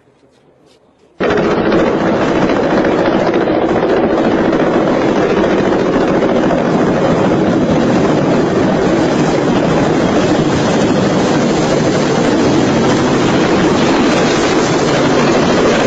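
Loud, steady helicopter engine and rotor noise that starts abruptly about a second in and holds level.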